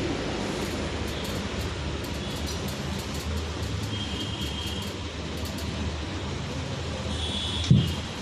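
Steady low hum, with a few faint light clicks as a power steering pinion housing and its oil seal are handled, and one dull thump near the end as the housing is set down on the table.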